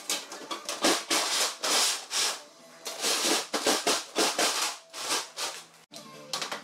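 Corrugated galvanized metal wall sheet being handled and slid into its J-channel trim: a run of irregular metallic rattles, scrapes and clatters that cuts off abruptly near the end, with soft background music underneath.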